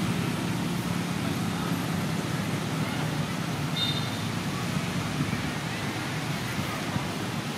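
Steady outdoor background rumble and hiss, with a brief high chirp about four seconds in.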